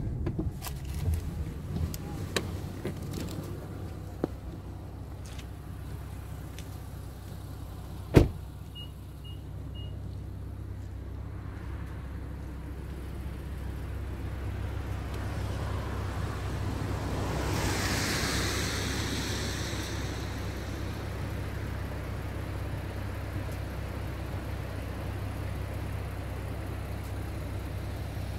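Car running with a steady low engine and road hum. A sharp click about eight seconds in is followed by three short high beeps, and a broad hiss swells and fades a little past halfway.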